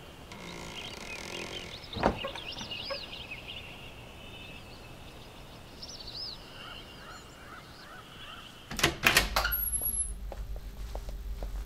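Small birds chirping and trilling, with a single sharp knock about two seconds in. Near the end comes a quick cluster of loud knocks, followed by a steady low hum.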